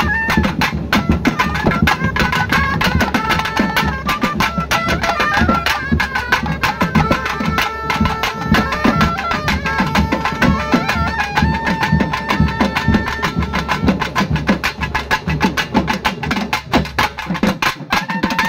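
Music: a wavering, sliding melody over fast, steady drum strokes with a low bass layer. The bass drops out about a second before the end.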